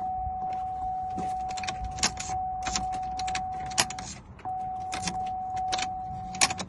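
A car's electronic warning tone sounding steadily at one pitch, breaking off briefly about four seconds in, while a metal key clicks and jangles as it is worked in the lock.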